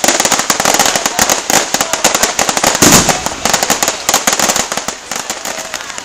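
Fireworks display: a dense run of rapid crackling bangs from many shells bursting overhead, with one louder, deeper bang about three seconds in. The crackling thins out near the end.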